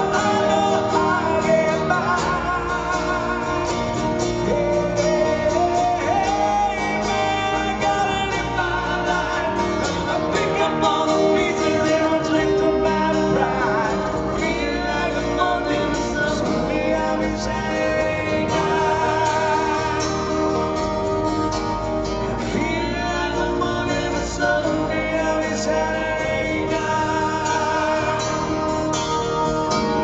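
Live acoustic rock performance: two male voices singing together over acoustic guitars.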